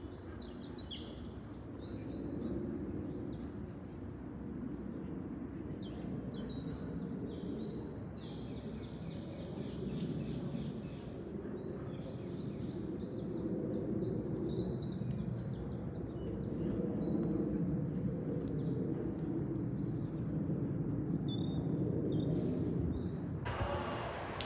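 Several songbirds singing in a dense chorus of repeated chirps and trills over a steady low background rumble. About a second before the end, wind noise on the microphone suddenly takes over.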